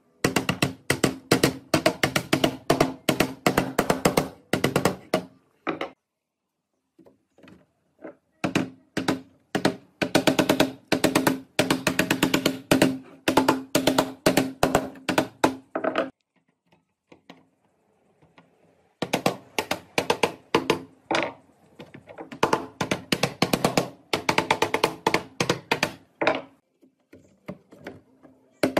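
Wooden mallet knocking notched pine strips down into each other's slots to lock a criss-cross lattice: quick taps, about four a second, each with the same ringing pitch, in three runs broken by short pauses.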